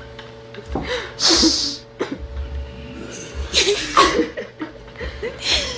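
Three short, breathy, hissy bursts from a person's voice: about a second in, near the middle, and near the end. A faint steady hum lies underneath.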